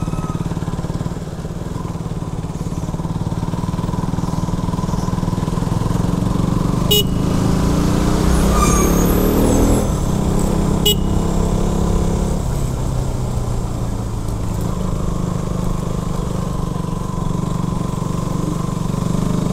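KTM RC 200's single-cylinder engine running steadily under way, with road and wind noise. About a third of the way in it grows louder for a few seconds as another vehicle passes, with two sharp clicks.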